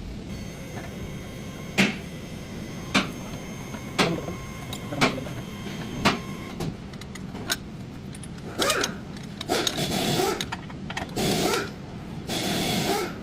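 Hand tools working on metal steering parts during an inner tie rod job. Sharp ringing metal clicks come about once a second, then a run of rasping bursts, each under a second, over a steady low hum.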